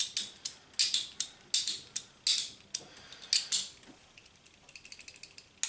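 Metal-on-metal clicks and short scrapes of a socket extension being pushed onto and pulled off a ratchet's square drive, working the freshly lubricated spring-loaded detent ball, about two a second. Near the end come a run of quicker, lighter clicks.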